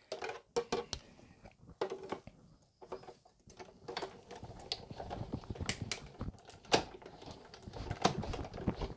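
Irregular clicks and taps of hands handling the plastic cutting plates and die-cut paper on a Big Shot die-cutting machine, with the handling noise getting busier from about halfway through.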